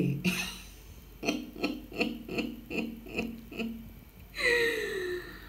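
A woman laughing: a run of about seven short pitched 'ha' pulses, roughly three a second, trailing off in one longer falling sound near the end.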